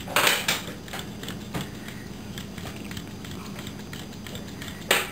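Faint ticking and whirring of small solar-powered hobby robots' gearmotors as they turn and walk, over a steady low hum. A short hiss-like rustle sounds just after the start and again near the end.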